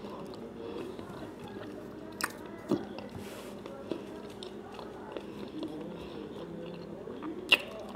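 A person chewing food close to the microphone, with soft wet mouth sounds and a few sharp clicks, the loudest near the end.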